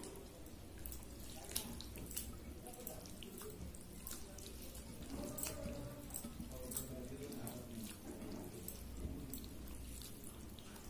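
A bare hand squeezing and mixing water-soaked rice (panta bhaat) with dried chili flakes in a bowl: wet squelching and sloshing, with irregular sharp little clicks throughout.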